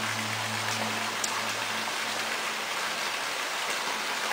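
Steady rain falling on garden plants and grass, an even hiss throughout. A low hum underneath fades out about two seconds in.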